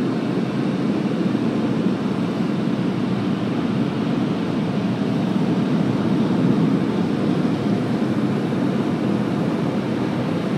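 Automatic car wash air dryers blowing on the car, a steady loud rush heard from inside the car.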